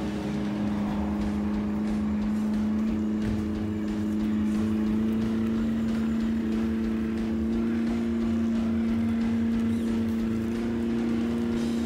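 A 1/8-scale RC crawler's electric motor and gearbox whining steadily as it crawls through grass, the pitch stepping up slightly a few times with the throttle.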